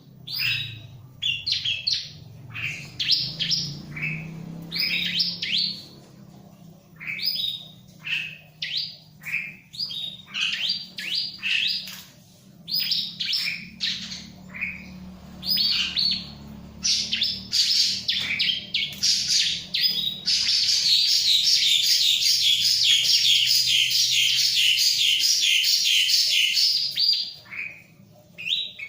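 Bar-winged prinia singing hard: a run of short, sharp high chirps, then about two-thirds of the way in a loud, rapid, unbroken trill lasting several seconds.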